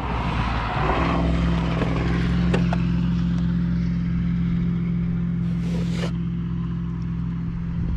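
Pickup truck engine idling steadily with a low, even hum. There are a couple of faint clicks, and a short hiss shortly before six seconds in.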